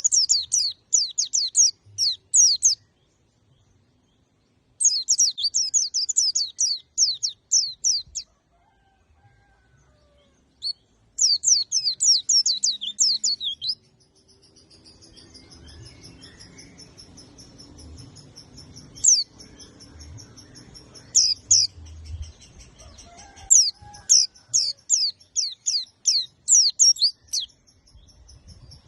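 Pleci (white-eye) singing its fast 'tembakan' song: runs of about three seconds of quick, high, downward-sweeping notes, several a second, with short pauses between runs. From about halfway a thin, steady high whistle runs beneath the song.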